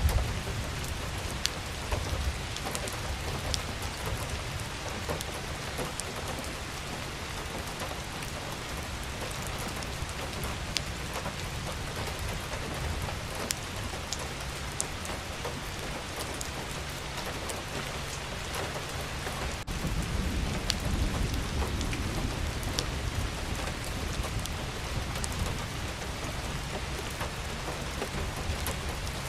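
Steady rain falling: an even hiss with scattered sharp drop ticks. A low rumble swells about two-thirds of the way in.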